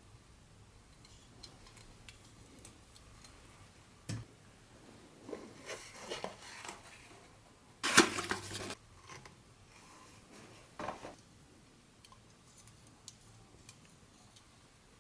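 Hands handling a vintage Tyco HO-scale train set and its packaging: scattered light clicks, a sharp knock about four seconds in, then handling noise and a loud clatter of small hard pieces about eight seconds in, with another short clatter near eleven seconds.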